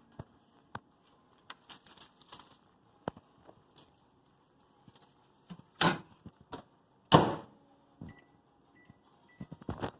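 Scattered knocks and clatter of kitchen handling, two of them loud about six and seven seconds in. A microwave oven beeps three short times near the end.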